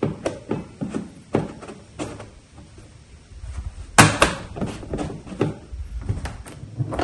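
Hands handling a tool tube mounted on a compact tractor, making a string of light knocks and clicks, with one sharp knock about four seconds in.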